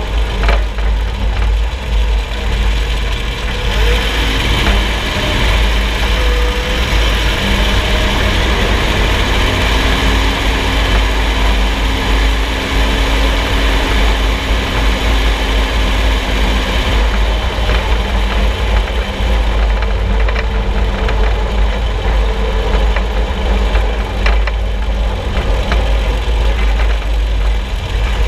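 Loud steady rumble of road and running gear heard from under the front axle of a moving vehicle, with a few faint knocks from the undercarriage about a second in and again later on.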